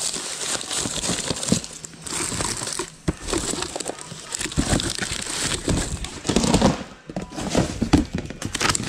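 Hands rummaging through a clear plastic storage tub of small items: plastic packaging crinkling, with many short clicks and knocks of things against the plastic.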